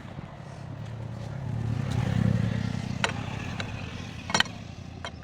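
A motor vehicle's engine rumble swells to its loudest about two seconds in and then fades. Two sharp metallic clicks come near the end.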